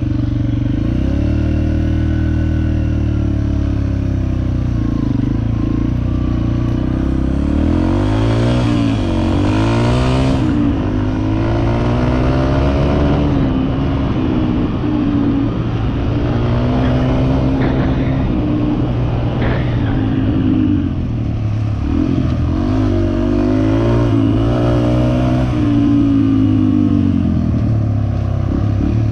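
Yamaha 250cc four-stroke dirt bike engine being ridden hard, revving up and easing off again and again as the rider works the throttle and gears, so its pitch keeps rising and falling. It is heard close up through the bike-mounted camera.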